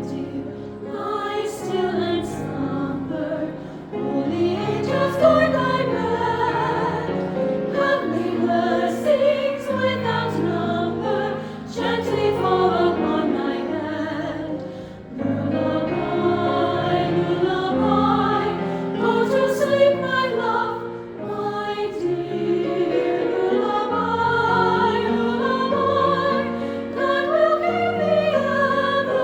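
Choir singing in several parts, in phrases with held notes and brief breaths between them.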